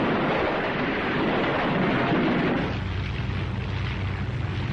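A bomb bursting in the sea: a long, noisy rush of blast and falling spray for over two seconds, giving way about two and a half seconds in to a low, steady engine drone.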